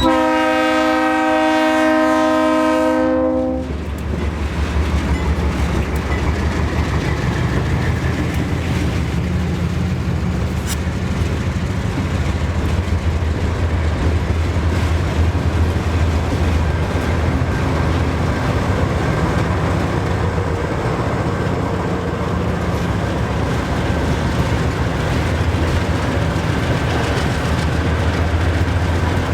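A diesel locomotive air horn sounds a chord of several notes for about three and a half seconds, then cuts off. After it, the train keeps passing: the locomotive engines give a steady low drone over the rumble of the cars on the rails.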